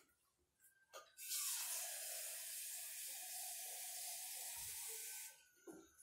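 Tap water running steadily for about four seconds, starting about a second in and shut off abruptly near the end.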